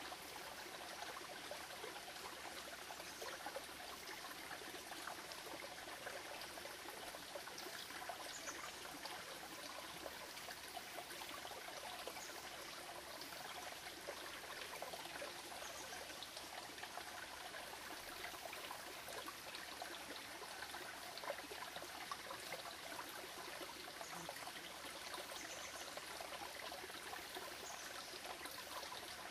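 Shallow creek trickling over stones, a faint steady sound of running water.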